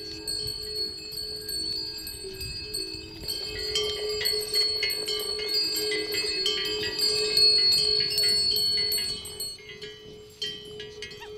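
Bells on pack yaks ringing and jingling irregularly as the caravan walks, thickest from about three to nine seconds in, over a steady low tone.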